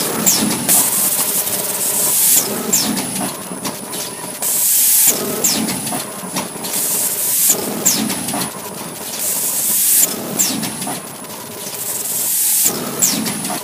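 Automatic bag handle-attaching machine cycling. A burst of hissing, often ending in a short falling squeal, comes about every two and a half seconds over a steady machine noise with a thin high whine.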